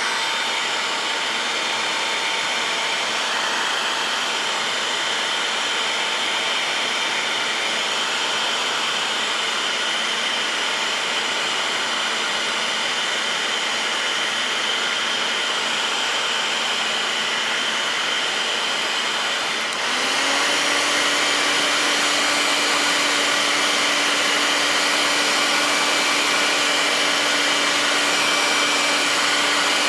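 Hot-air gun running steadily, blowing to heat a stuck heater blower-motor part. About 20 seconds in it steps up to a higher setting, a little louder and higher in pitch.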